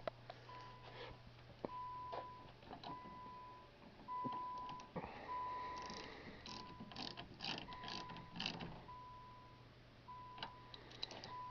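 A car's electronic warning chime beeping evenly, about one short beep a second, as the battery is reconnected. In the middle come a run of sharp metallic clicks from a 10 mm wrench tightening the battery terminal.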